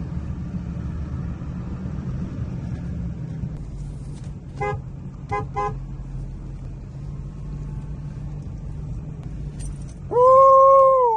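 Pickup truck horn sounded to call cattle: three quick short toots about five seconds in, then one long steady blast near the end, the loudest sound. Under it the truck's engine runs steadily, heard from inside the cab.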